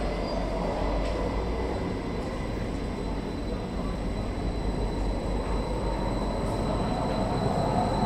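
Underground metro train rumbling along a station platform: a steady, even rumble with thin, steady high tones over it, growing slightly louder near the end.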